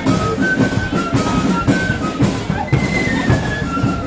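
Marching flute band playing a tune: a melody of flutes over drums beating a steady march rhythm.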